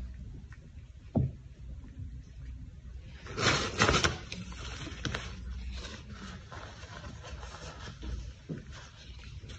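A cat sucking milk from a small feeding bottle, with soft wet clicks and low handling noise. There is a loud burst of rustling and scraping a little over three seconds in.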